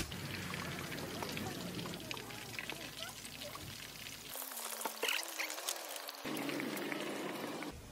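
Battered squid pieces deep-frying in hot oil in a tabletop fryer: a steady sizzle with fine crackling.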